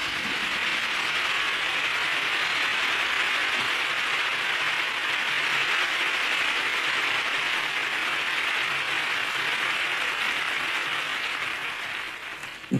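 Concert audience applauding steadily after a number, tapering off near the end.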